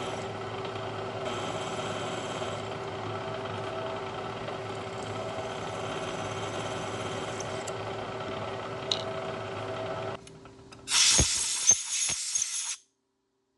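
Milling machine spindle running with a steady hum while drilling a clearance hole into an aluminum vise jaw. About ten seconds in, the machine sound drops away. A brief, loud rushing hiss with a few knocks follows, then the sound cuts off suddenly.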